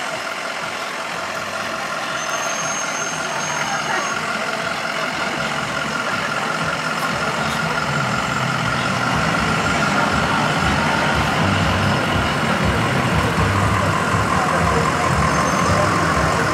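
A slow procession of emergency vehicles rolling past, an ambulance and a fire department SUV with fire engines behind, their engines running steadily. The low engine rumble grows louder in the second half as the heavier trucks draw near.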